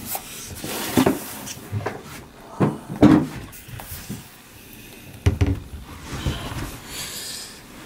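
A 2016 15-inch MacBook Pro being lifted out of its cardboard box and handled on a table: a series of knocks and rubs, the loudest about three seconds in and another sharp knock about five seconds in.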